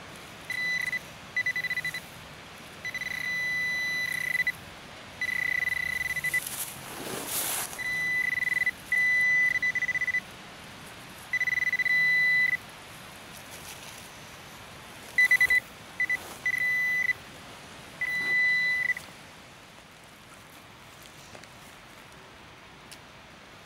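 Metal-detecting pinpointer probe sounding a steady high beep in on-and-off bursts of varying length as it is moved through the hole, signalling metal in the soil; the beeping stops about 19 seconds in. A brief scrape of soil sounds about 7 seconds in.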